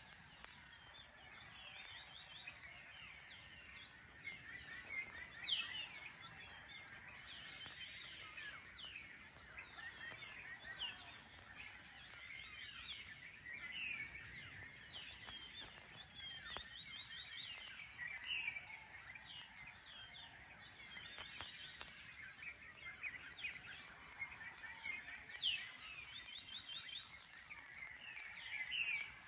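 A dawn chorus of many birds chirping: quick, high, falling notes from several birds overlapping without a break, over a faint steady outdoor hiss.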